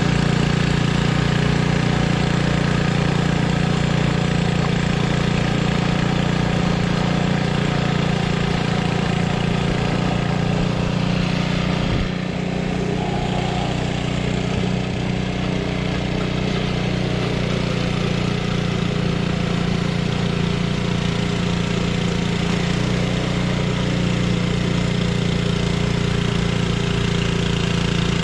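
1976 Ariens Sno-Thro snowblower's engine running steadily, with a small drop in level about twelve seconds in.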